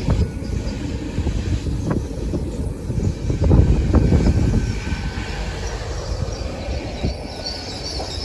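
Great Western Railway Class 800/802 intercity train rolling slowly past alongside the platform: a steady low rumble of running gear and underfloor engines, with a few wheel clacks over rail joints. A thin high wheel or brake squeal starts near the end.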